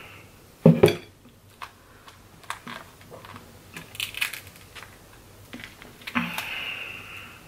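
Crab leg shells cracking and clicking as they are broken open and eaten, the loudest crack about a second in. A noisy hiss lasting about a second comes near the end.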